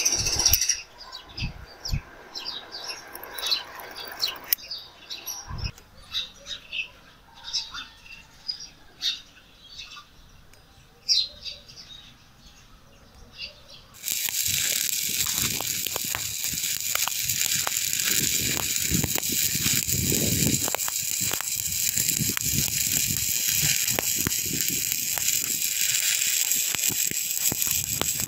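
Stick-welding (shielded metal arc) electrode striking an arc about halfway through and burning with a loud, steady crackling hiss. Before that, only faint scattered chirps and a few soft knocks.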